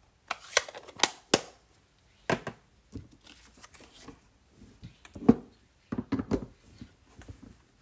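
Sharp plastic clicks and knocks of rubber-stamping tools being handled: an ink pad and the clear acrylic plate and parts of a Stamparatus stamp-positioning tool being moved and set down. Several come in the first second and a half, the loudest a little past five seconds in, then a quick run of smaller knocks.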